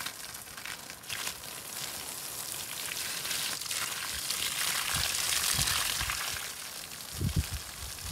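Water spraying from a hose, a steady hiss that swells in the middle. A few low bumps come in the second half.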